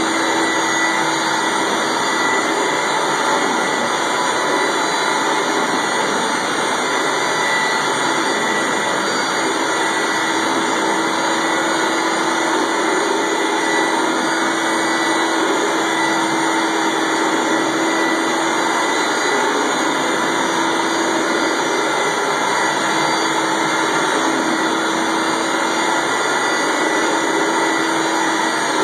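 Rotovac 360i rotary carpet extractor running as it is worked over carpet: a steady, loud machine noise of its spinning heads and vacuum suction, with a hum that comes and goes.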